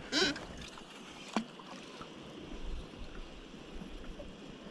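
Water lapping quietly around a fishing kayak with a steady light hiss, a short swish right at the start and a single sharp click about a second and a half in.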